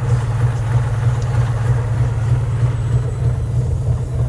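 Daihatsu Hijet 1000 engine idling steadily with an even low hum, running after two months standing unused.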